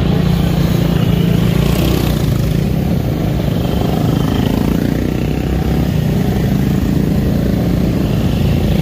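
Quad bikes (ATVs) riding past one after another, their engines running loud.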